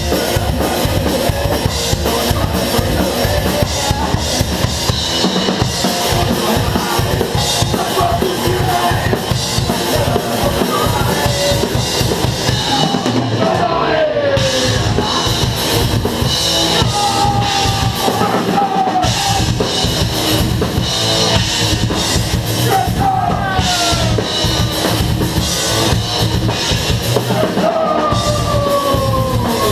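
Live metal band playing: a drum kit hammering fast bass drum, snare and cymbals under guitar lines that slide downward several times. The drums break off for a moment a few times.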